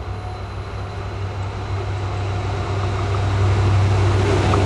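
Diesel locomotive approaching on the line, its engine's low drone growing steadily louder.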